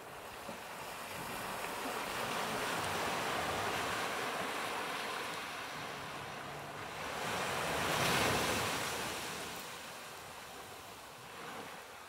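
Ocean waves breaking and washing up onto a sand and cobble beach: a long surge of surf, then a louder break about eight seconds in that washes out and fades.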